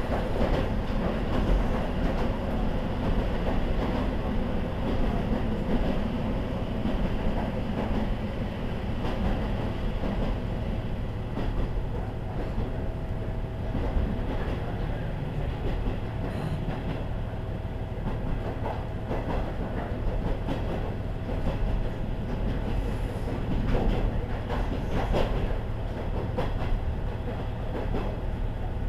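KiHa 40 series diesel railcar running along the line: a steady low rumble of engine and wheels, with scattered clicks of the wheels over rail joints.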